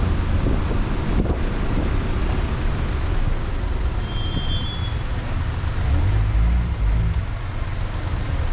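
Road traffic noise while driving in city streets: a steady low rumble of engines and tyres, with a short high squeal about four seconds in.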